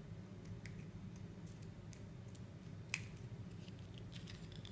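Scissors snipping into a flattened plastic drinking straw to cut a V shape: faint scattered clicks, with one sharper snip about three seconds in, over a low steady room hum.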